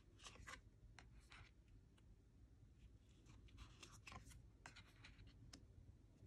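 Faint, short scuffs of thick, smooth-finish oracle cards sliding against each other as they are taken off one pile and laid on another.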